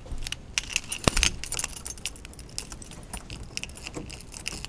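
A bunch of metal keys jangling and clicking against a round doorknob lock as a key is worked into it, with a sharper knock about a second in.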